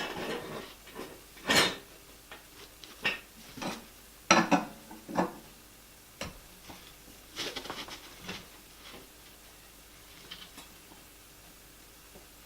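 Scattered metallic clinks and knocks of metal garage gear being handled and set down, such as jack stands and tools while the car is raised. The knocks come irregularly, a few a second at most, and thin out in the last few seconds.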